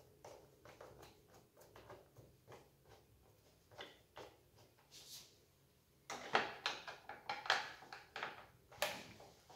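Screwdriver working screws on a Husqvarna chainsaw's plastic housing, with small irregular clicks and ticks. About six seconds in come louder knocks and scrapes of the plastic parts being handled.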